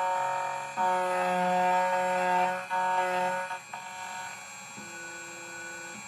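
CNC key cutting machine's cutter spindle running with a steady whine while cutting a key blank. It drops out briefly a few times as the cutter moves between cuts. About four seconds in it falls quieter, leaving a lower steady hum.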